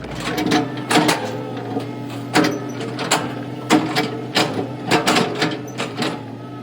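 An engine running steadily, with irregular sharp knocks and clanks over it, about one or two a second.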